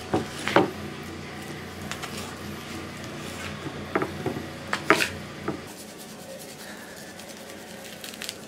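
Hands and a knife working raw chuck roast on a paper plate and wooden cutting board: a few scattered taps and knocks, over a low steady hum that fades about six seconds in.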